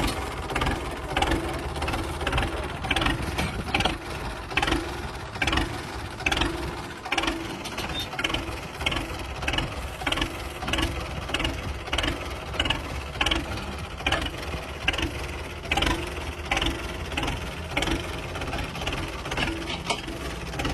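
Tractor engine running steadily, with a sharp knock repeating about twice a second.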